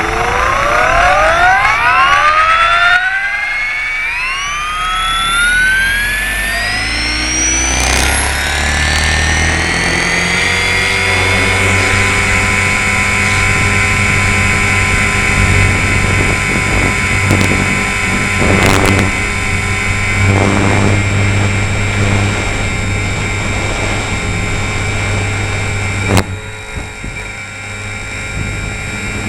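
Align T-Rex 450 Sport radio-controlled helicopter's electric motor and rotor whine, heard up close. It rises steadily in pitch over the first ten seconds or so, then holds a steady pitch, with a sharp click about 26 seconds in.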